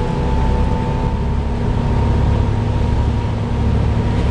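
Volvo B7TL bus's engine cooling fan giving a steady, hoover-like high whine over the low drone of the running engine, heard from inside the moving bus.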